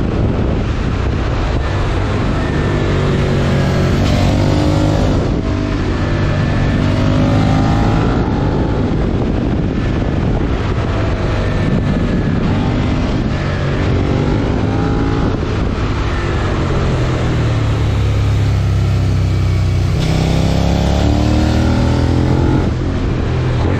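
Suzuki SV650's 90° V-twin with a Yoshimura R77 exhaust, ridden downhill: the revs climb and fall back several times as it goes through the gears, tested on a slipper clutch under engine braking.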